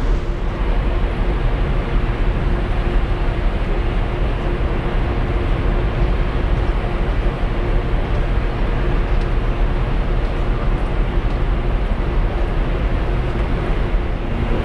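Mega Express Two ferry's engines and machinery running steadily, heard from the deck as a deep, even rumble with a low hum holding a couple of steady tones.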